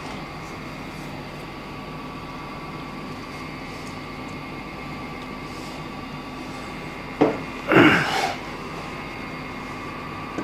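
Steady hum of the room with a few faint steady tones. A sharp click comes about seven seconds in, then a short, louder clatter just before eight seconds as the Ducati 998's cylinder head is picked up from the bench.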